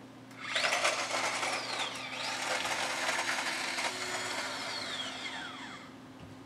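Manual mini food chopper chopping garlic cloves: the blades spin and the garlic rattles inside the plastic bowl, a whirring that starts about half a second in, with a faint whine rising and falling in pitch, and dies away near the end.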